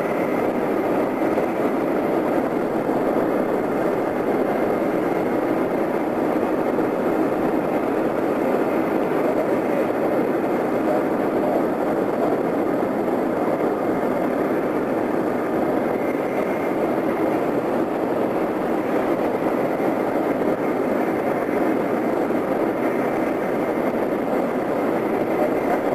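Steady rush of air past a Highlander light plane gliding with its engine off and propeller stopped: a dead-stick glide, with no engine sound.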